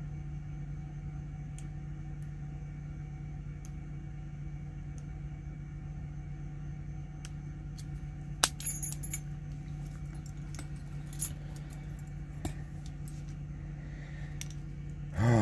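Faint ticks of lock picks working a padlock, then a sharp metal click and a short jingle of metal about eight seconds in as the padlock opens and is handled, and a couple more single clicks after as tools and locks are put down and picked up. A steady low hum runs underneath.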